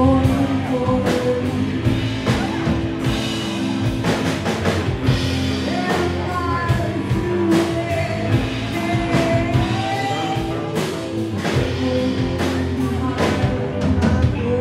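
A live rock band playing: a woman singing over guitars, bass guitar and a drum kit, with drum hits on a steady beat.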